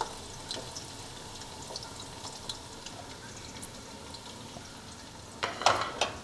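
Sliced onions frying in hot oil: a steady sizzle with scattered little crackles, and a few louder sharp scraping knocks just before the end.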